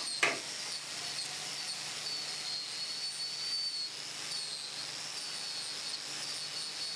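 Angle grinder running with a polishing disc worked over a steel spanner: a steady high-pitched, slightly wavering whine over a hiss, with one sharp knock right at the start.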